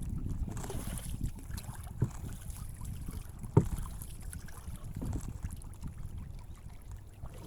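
Wind rumbling on the microphone, with a few dull knocks; the loudest knock comes about three and a half seconds in.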